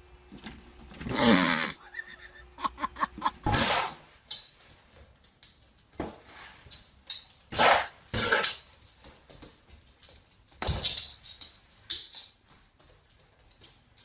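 A dog giving short barks and yelps at uneven intervals.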